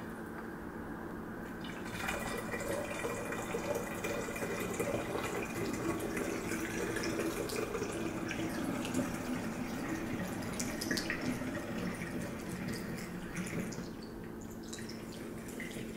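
Thick green juice pouring from a plastic jug through a small metal funnel into a glass bottle, a steady trickling stream that starts about two seconds in.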